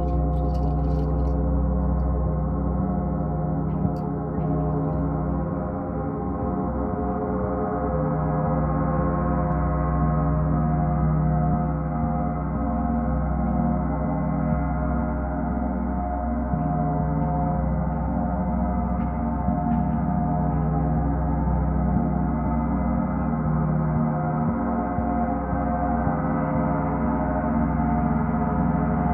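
A gong sounding in a continuous, swelling wash of many overlapping ringing tones over a deep hum, with no separate strikes.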